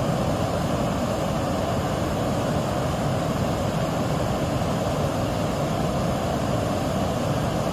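Steady rushing of a stream swollen high by heavy rain, an even noise with no breaks.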